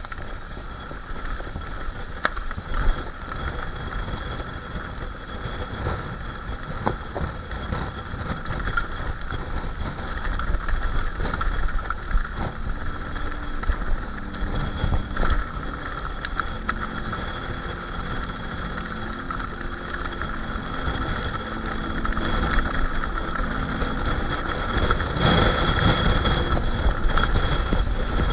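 Mountain bike riding down a rough, stony singletrack, heard from a bike-mounted camera: wind buffeting the microphone over the rumble of tyres on rock, with frequent knocks and rattles from the bike. It gets louder in the last few seconds.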